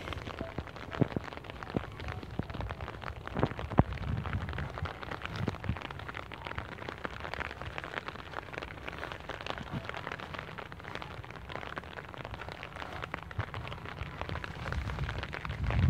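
Wind buffeting a phone microphone in open fields, a low rumble that swells near the end, with many irregular sharp clicks and taps over it.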